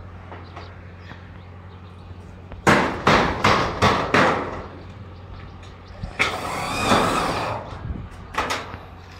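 A rapid run of about five hammer blows on steel, then a harsh noise lasting about a second and a half, then a few more knocks, all over a steady low hum.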